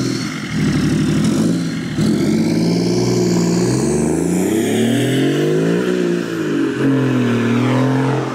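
BMW E39 530d's 3.0-litre M57 straight-six turbodiesel, on a home-welded straight-through exhaust with no muffler, accelerating hard as the car pulls away. The engine note climbs for several seconds, drops at a gear change about six seconds in, then holds steady.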